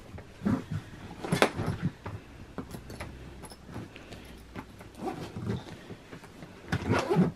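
Suitcase being closed and handled: scattered knocks, clicks and rustles, with a louder knock about one and a half seconds in and a few more near the end.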